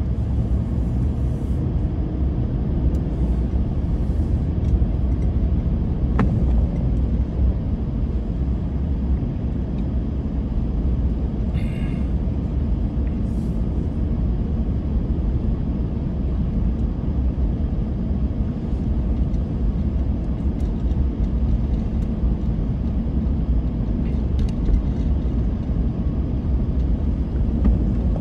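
Steady low rumble of a car's engine and tyres heard from inside the cabin while driving on a snow-covered road, with a few faint clicks.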